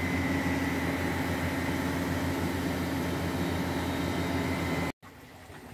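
Electric water pump running at a pump house with a steady, even hum, which stops abruptly near the end.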